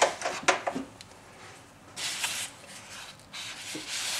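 A few sharp clicks and knocks as scissors are taken down from a pegboard tool wall, then scraping and rubbing of foam and plastic packaging on the workbench.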